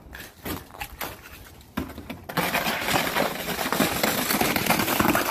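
A hard plastic disc knocking and scraping over crusted snow and ice as a dog pushes it along: a few separate knocks, then a continuous loud grating scrape from about two seconds in.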